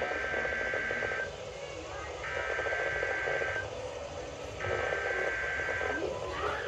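NOAA Weather Radio SAME (Specific Area Message Encoding) header for a National Weather Service weekly test: three bursts of screeching two-tone digital data, each about a second and a quarter long, about a second apart.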